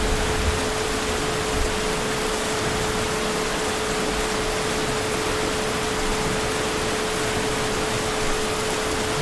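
Heavy rain falling steadily as a dense, even hiss, with a low rumble of distant thunder near the start and a thin steady tone underneath.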